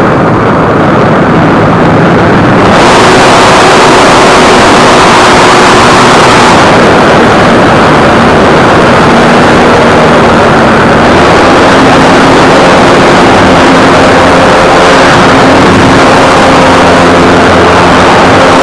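RC model airplane's motor and propeller with wind rush, picked up by a camera riding on the plane: a loud, steady noise with a faint hum that shifts in pitch as the throttle changes.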